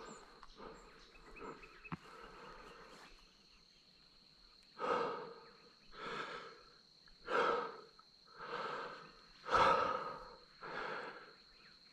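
A person breathing hard, out of breath: faint breaths at first, then about five seconds in six heavy breaths, one every second and a bit.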